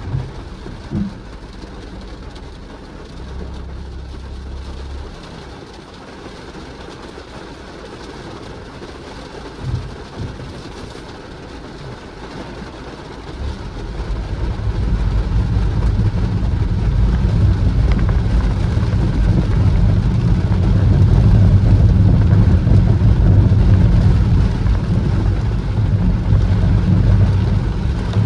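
Car driving on a wet road: steady low engine and tyre rumble that builds up strongly about halfway through as the car picks up speed, with a few brief knocks in the first ten seconds.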